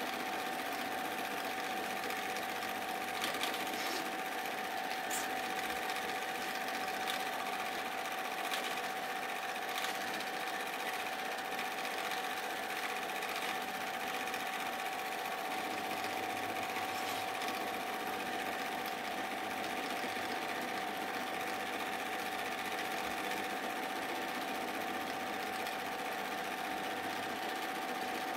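Super 8 film projector running steadily: an even mechanical whir of the motor and film transport, with a constant tone.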